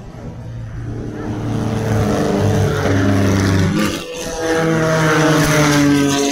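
Two 1600 cc dirt-track race cars running at full throttle past the spot, their engines revving loud. The engine note breaks off briefly about four seconds in, then comes back higher.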